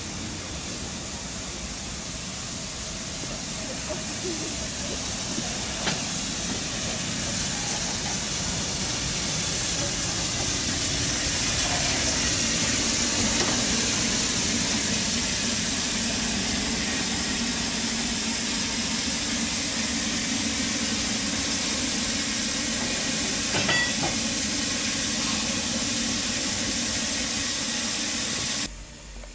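Narrow-gauge steam locomotive letting off steam: a steady hiss with a low hum beneath it, swelling to its loudest about halfway through and cutting off abruptly near the end.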